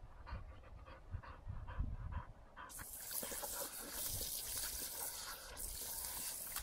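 A boxer dog panting quickly, about four breaths a second. From about two and a half seconds in, dense splashing takes over as it wallows and digs in a muddy puddle, pausing briefly once.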